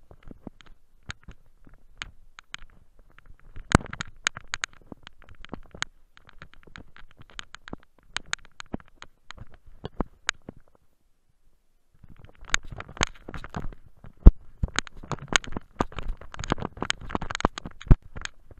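Irregular clicks, knocks and scraping from a camera worn by a dog, jostled and rubbed as the dog plunges through deep snow, with a moment of quiet partway through and denser knocking after it.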